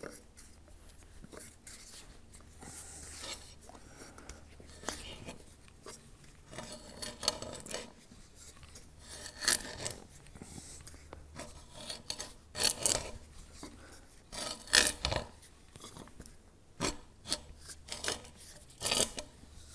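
Hand auger (avegaar) boring a small starter hole into the end grain of an oak trunk: irregular rasping scrapes of the bit cutting the wood as the handle is turned, coming in uneven strokes.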